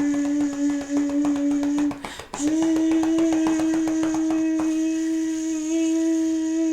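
A woman's voice holding a long wordless note, breaking for a breath about two seconds in and then holding a slightly higher note. Under it, quick even pats of a hand on her tummy.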